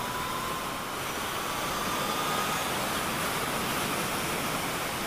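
Steady wind and road noise from a Yamaha FJR1300 inline-four sport-touring motorcycle riding at speed, rushing over the camera's microphone. A faint whine climbs slowly in pitch through the first half as the bike accelerates.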